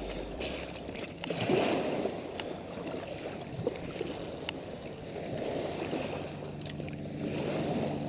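Small waves washing on a beach, the noise swelling and falling back every couple of seconds, with a few faint clicks. A low steady hum joins about six seconds in.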